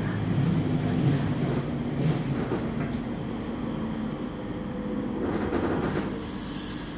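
Cologne tram running along its rails, heard on board: a steady low rumble with a held electric hum, and light clicks from the wheels.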